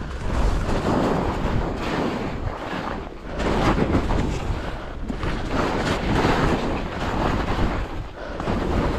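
Wind buffeting the microphone of a skier's body-worn camera during a fast downhill run, mixed with skis scraping and hissing over wind-packed snow. The noise swells and dips every second or two, dropping most about three seconds in and near the end.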